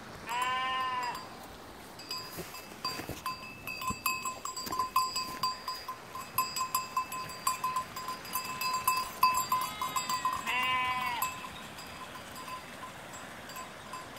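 Sheep bleating: one long bleat at the start and another about ten seconds in, with a fainter one just before it. In between, a small bell clinks in quick, uneven strokes.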